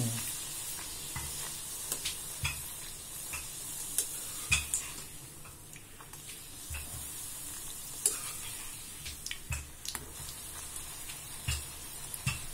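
Poori deep-frying in hot oil in a kadai: a steady sizzle, with many short clicks and taps of a perforated steel skimmer against the pan. The sizzle eases briefly about halfway through as the fried poori is lifted out, then picks up when a fresh one goes into the oil.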